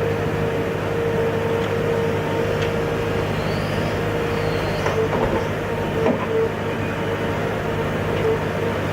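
A machine's engine running steadily, with a constant whine over a low hum and a few faint clicks partway through.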